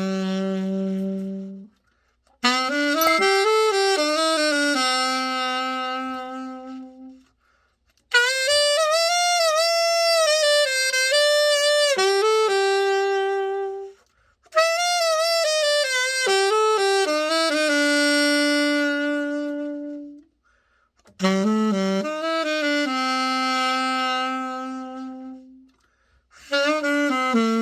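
Selmer Reference 54 alto saxophone played in about five short melodic phrases, each ending on a held note, with brief silences between them: a play test of the horn after a full overhaul.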